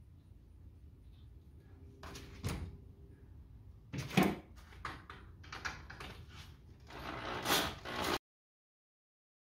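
Knocks, clatter and short scrapes of a cordless drill being picked up and fitted against the hub of a Scotts push reel mower for backlapping, busier near the end; the sound cuts off abruptly a little after eight seconds in.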